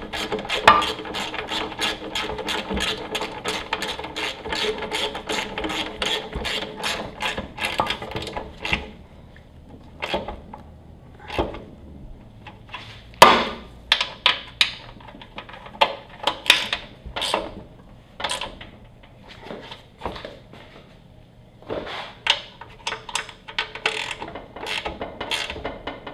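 Ratchet wrench clicking at about four clicks a second for the first nine seconds as the pressure washer pump's 14 mm mounting bolts are run down. It then turns to slower, separate clicks and clunks as the bolts are snugged and tightened.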